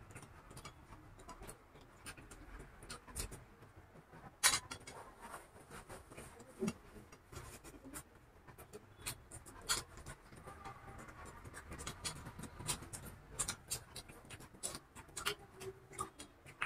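Faint eating sounds: two people chewing vada pav, with scattered small clicks and taps of fingers and food on paper plates and one sharper click about four and a half seconds in.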